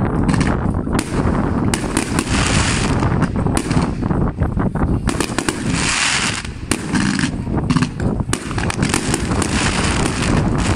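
Aerial fireworks bursting: many sharp bangs in quick succession, with stretches of dense crackling between them.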